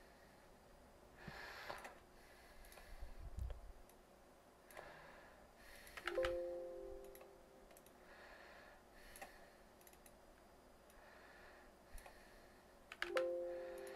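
Two short chimes about seven seconds apart, each coming right after a click and ringing on a few tones that fade over about a second. Fainter scattered clicks sound between them.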